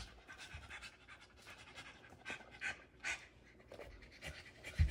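Dog panting: quick, breathy huffs in uneven runs, with a soft low thump near the end.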